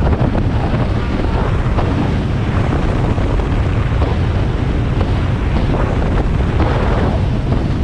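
Heavy, steady wind buffeting the microphone aboard a boat under way on open water, with water and boat noise underneath.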